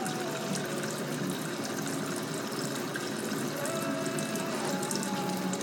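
Tap water running steadily, with a faint tone in the background.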